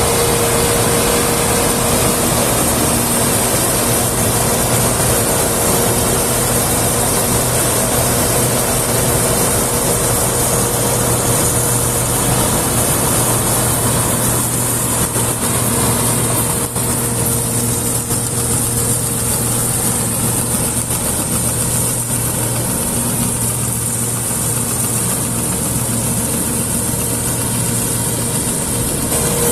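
Combine harvester's engine and machinery running steadily, with a constant low drone under a steady mechanical hum.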